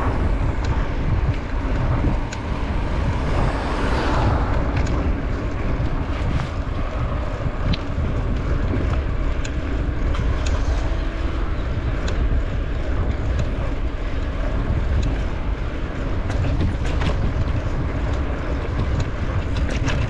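Wind rushing over the microphone of a moving bicycle on an asphalt road: a steady low rumble with a few faint clicks.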